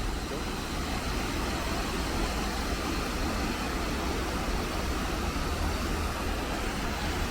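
Steady rushing of the Bronx River's water pouring over the dam and rapids, an even noise with a deep low rumble underneath.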